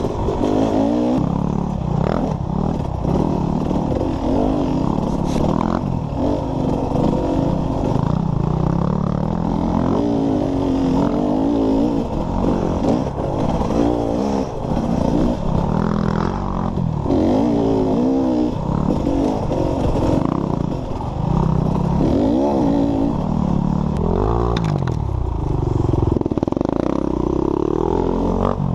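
Dirt bike engine revving hard and backing off over and over as the rider throttles and shifts through the trail, its pitch constantly rising and falling. Clatter and knocks from the bike over rough ground run underneath.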